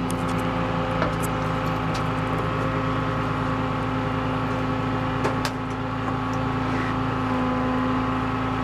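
Flatbed tow truck's engine idling steadily, with a few light clicks over it.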